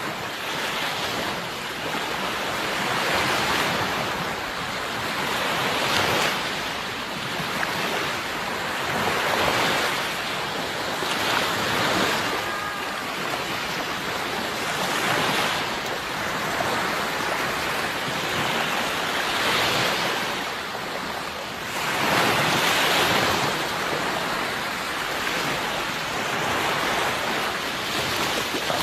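Sea waves breaking and washing on a shore, swelling and falling back every few seconds, with the loudest surge about three-quarters of the way through.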